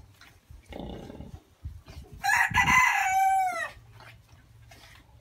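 A rooster crowing once, a long call that drops in pitch at the end, preceded about a second in by a shorter, lower animal call.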